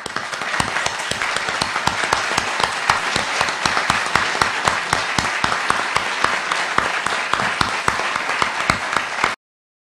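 Audience applauding: a dense, steady clapping of many hands that stops abruptly about nine seconds in.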